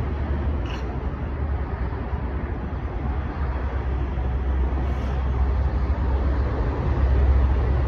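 Steady low rumble of road noise, with no distinct events, growing a little louder in the second half.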